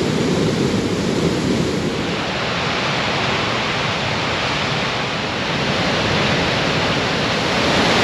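Athabasca Falls, a powerful river waterfall, giving a steady heavy rush of falling water. About two seconds in, the low rumble gives way to a brighter hiss.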